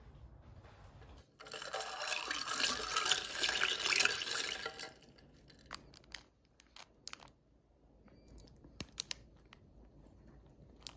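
A loud rushing hiss that starts about a second and a half in and lasts some three seconds. Then quieter, with scattered crinkles and clicks from a plastic snack wrapper being handled around a pastry.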